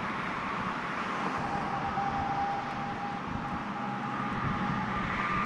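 Steady outdoor traffic noise from passing road vehicles, with a faint high steady tone joining about a second in.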